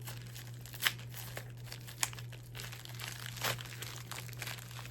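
Plastic packaging crinkling as a parcel is handled and opened, with three sharp crackles.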